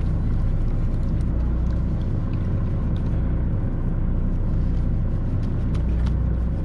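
Charter fishing boat's engine running steadily, a low even rumble, with a few faint light ticks over it.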